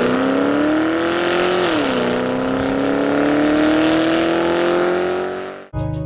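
Porsche Panamera Turbo engine running under load through a Remus sports exhaust on a rolling-road dyno. The engine pitch climbs, drops sharply about one and a half seconds in, then climbs steadily again. The engine sound cuts off just before the end as music starts.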